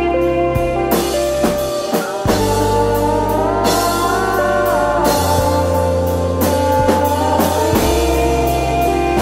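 Alternative rock band music: a steady drum-kit beat under sustained guitar chords and gliding melodic lines.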